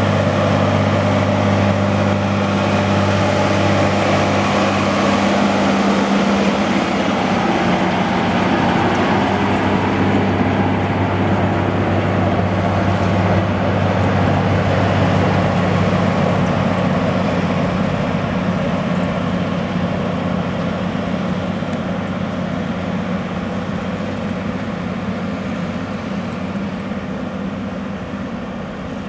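Case IH Steiger 500 Quadtrac's 12.9-litre diesel engine running steadily under load while pulling a five-furrow plough. It is loud and steady at first and grows gradually fainter over the second half.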